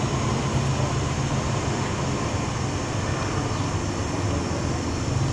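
Steady low mechanical hum over an even background noise, unchanging throughout, with no distinct events.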